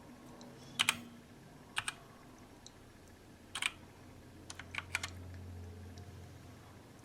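Keys of a RisoPhy wireless mechanical keyboard with linear red-type switches being pressed in short, scattered clusters of two to four strokes about a second apart, each stroke a sharp clack.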